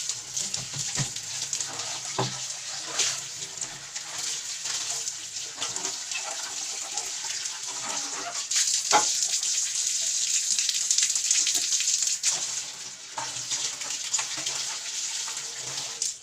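Tap water running into a sink, with scattered knocks and clatters of things being handled under it.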